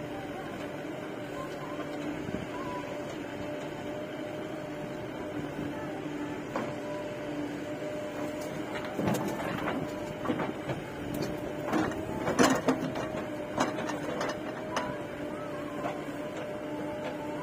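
Diesel engines of a JCB 3DX backhoe loader and a tractor running with a steady hum. From about nine seconds in, a burst of thuds and knocks as the backhoe's bucket dumps clods of earth into the steel tractor trolley, loudest about twelve seconds in.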